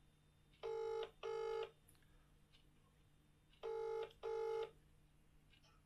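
British telephone ringing tone coming through a mobile phone's loudspeaker: two double rings about three seconds apart, each a pair of short beeps, as an outgoing call rings out waiting to be answered.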